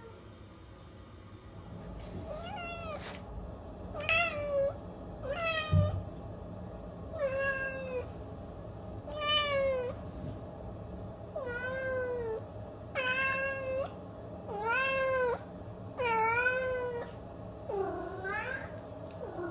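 A domestic cat meowing over and over: about ten drawn-out meows, roughly one every second and a half, each rising and then falling in pitch.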